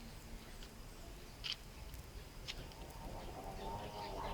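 Puppies at play: a few brief high-pitched squeaks, then, from about three seconds in, a puppy's wavering whine.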